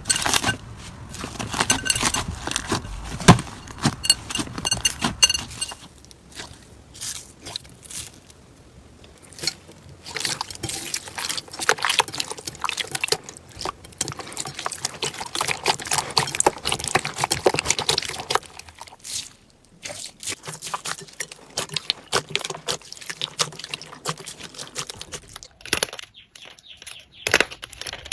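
Slime being squished and worked by hand, with dense wet crackling and popping clicks that ease off for a few seconds twice.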